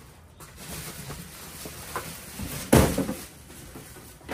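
A large cardboard shipping box being handled and set down on the pavement after being lifted off an air handler: light cardboard knocks and scuffs, then one loud thump a little under three seconds in.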